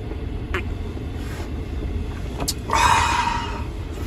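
Gale-force wind buffeting the RV, a steady low rumble heard from inside. A few light clicks come through it, and a brief hiss about three seconds in.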